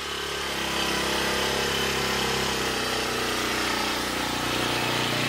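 Shoulder-strap brush cutter's small petrol engine running at a steady speed, spinning its nylon line trimmer head in grass.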